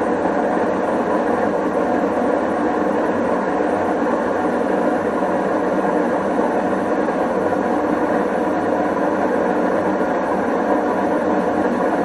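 Whirlpool front-loading washing machine running with a loud, steady mechanical noise that the owner says sounds like a failing bearing.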